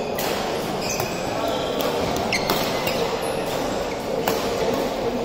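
Badminton rally: sharp racket strikes on the shuttlecock and short squeaks of shoes on the court mat, over a steady murmur of voices in a large echoing sports hall.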